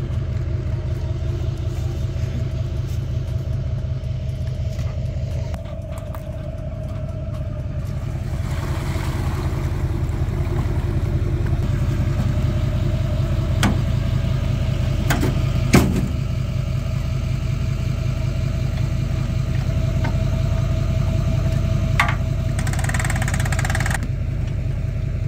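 Engine running steadily under load with a fast, even low rumble, growing gradually louder through the middle. A few sharp knocks or clicks come about two-thirds of the way through.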